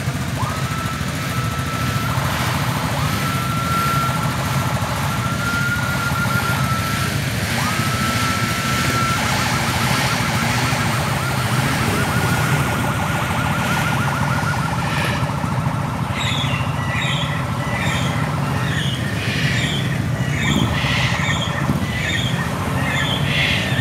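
An electronic siren sounding over idling motorcycle engines: first several held blasts of one tone, then a fast warble, then a run of short high chirps near the end.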